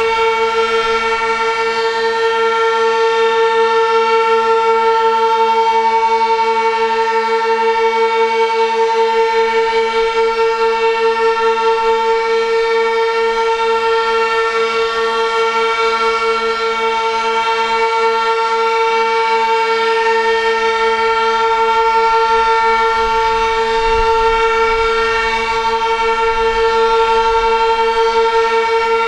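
Sentry 16V1T-B and Federal Signal Model 2 outdoor warning sirens sounding a steady alert tone. The tone holds one pitch and is loud, with its level swelling and dipping slightly.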